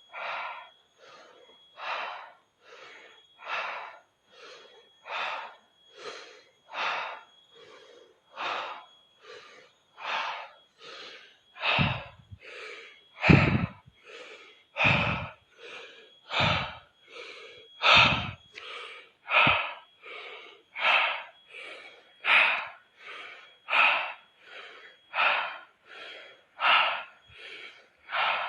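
Rapid, forceful breathing in a steady rhythm, a deep breath in and out about every one and a half seconds, as in a power-breathing exercise. Several breaths in the middle stretch blow on the microphone with a low thump.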